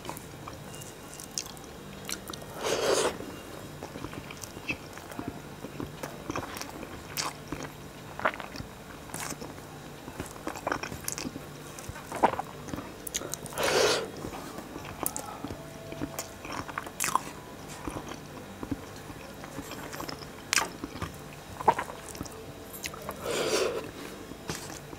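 Close-miked eating: a man chewing and biting mouthfuls of rice mixed with fried bitter gourd, potato and onion, with many small wet mouth clicks and smacks. Three louder chewing bursts come about ten seconds apart.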